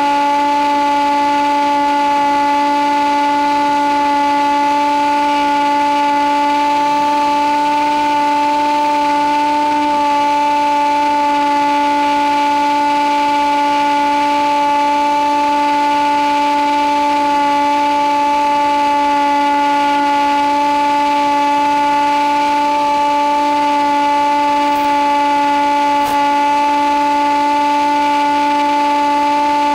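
Electric motor and propeller of an Easy Hawk model plane running steadily in flight, heard from onboard: an even, unwavering whine.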